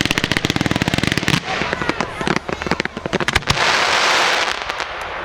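Fireworks going off: a rapid string of sharp reports for about the first second and a half, then scattered single bangs, then a dense crackling hiss a little past the middle.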